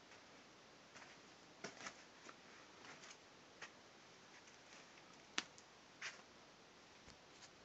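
Near-quiet room with scattered faint clicks and crackles of someone moving about a littered floor, the sharpest about five and a half seconds in.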